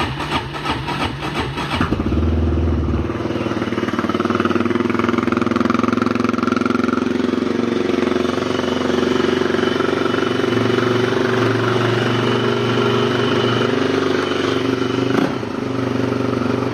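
Yamaha Raptor ATV engine cold-started at 18 degrees after sitting three or four days: it cranks and catches about two seconds in, then runs at a steady idle.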